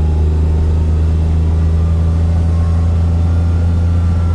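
A motor vehicle's engine running with a steady low hum, even in pitch and level.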